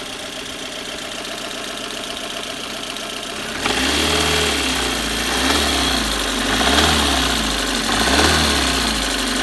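Car engine idling, then from about four seconds in revved up and down in repeated blips. It has a knock that the owner cannot place, with the valves and timing chain checked and the spark plugs new.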